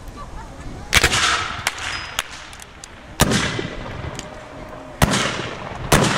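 Black-powder muskets firing blanks in a scattered volley: four loud shots at irregular intervals, the last two close together near the end, with fainter distant shots in between.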